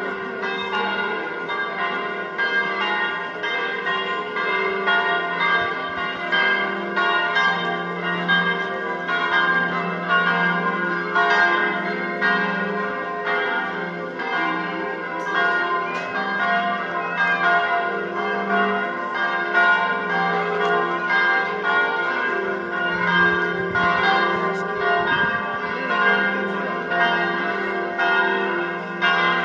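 Several church bells of St Peter and St Paul's bell tower ringing together, strokes following one another in quick succession and each ringing on into the next.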